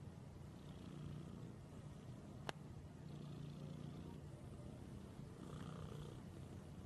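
White long-haired cat purring steadily and faintly while it is stroked, with one sharp click about two and a half seconds in.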